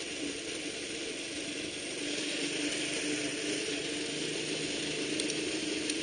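Honda Super Cub 110 under way, its small single-cylinder four-stroke engine running steadily under a busy mechanical rattle and wind rush.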